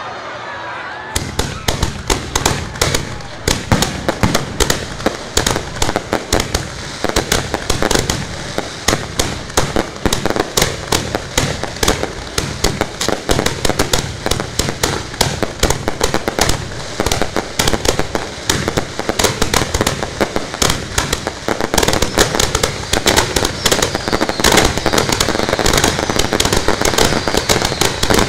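Fireworks firing from launch racks a few metres away: a dense, continuous barrage of sharp bangs and crackles, many per second, that starts about a second in.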